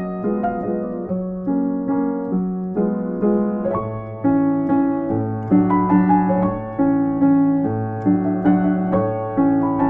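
Background piano music: a gentle, evenly paced melody over repeated lower notes, with a deeper bass line coming in about four seconds in.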